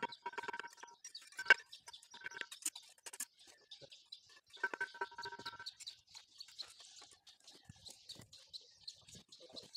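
A goat bleats twice, each bleat about a second long, with a small bird chirping rapidly and evenly through the second half. A single sharp tap about a second and a half in is the loudest sound.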